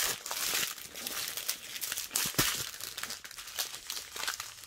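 Small clear plastic bags of diamond-painting drills crinkling as they are handled and shuffled about, a dense, irregular run of crackles.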